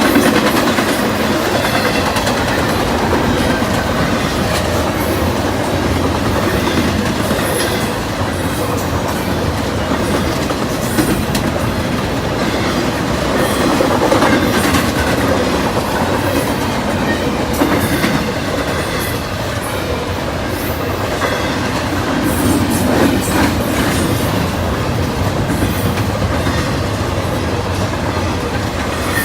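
CSX freight train's cars rolling steadily past, wheels clicking over the rail joints, with faint high wheel squeal now and then.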